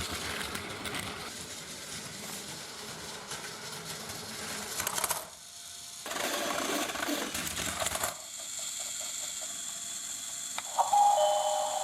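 A battery-powered Plarail toy train running on plastic track, its small motor whirring and wheels rattling, with a brief dip about halfway. Near the end an electronic two-note station chime starts.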